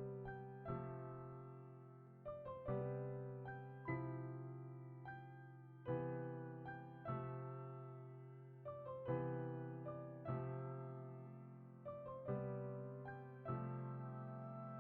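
Background music: soft keyboard chords, each struck and left to fade, a new one every one to two seconds.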